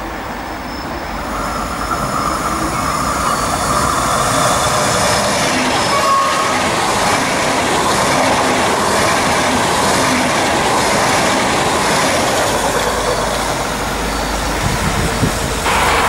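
A train running on the rails, a steady rail noise that grows louder over the first three seconds and then holds, with faint thin high tones above it.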